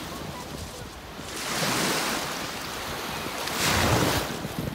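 Choppy lake water washing in small waves at the shore, with wind on the microphone; the wash swells twice, about a third of the way in and again near the end.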